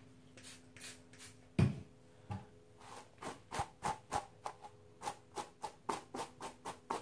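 Wet Brush detangling hairbrush stroking through a lock of long hair, short rustling scrapes. A few scattered strokes and a dull thump about a second and a half in, then brisk regular strokes about three a second from about three seconds in.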